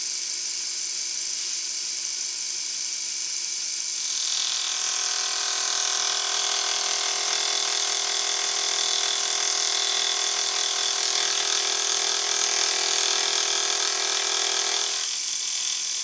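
Milling machine running steadily while a dovetail cutter machines a cast iron cross slide. About four seconds in, the sound rises to a louder whine made of several pitches at once, which holds until about a second before the end and then drops back to the quieter running.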